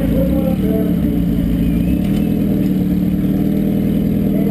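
Compact pickup's derby engine running steadily, loud, heard from inside its cab.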